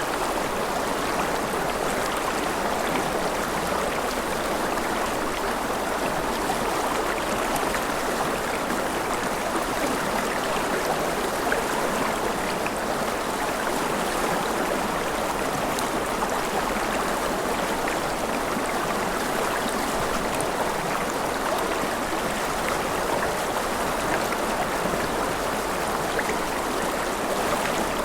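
River water flowing steadily over rocks, an even rushing and babbling without breaks.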